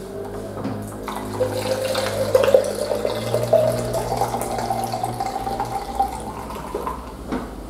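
A shaken cocktail poured from a metal cocktail shaker into a tall hurricane glass, the pitch of the pour rising steadily as the glass fills, then stopping about six seconds in.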